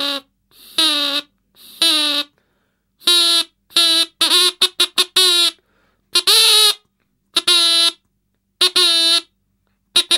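Toy siren sounding in short buzzy blasts, switched on and off again and again, with some quick stuttering runs of very short blasts.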